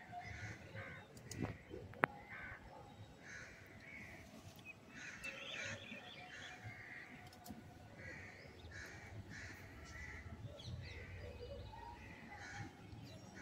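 Crows cawing over and over, a harsh caw every second or so, with a single sharp click about two seconds in.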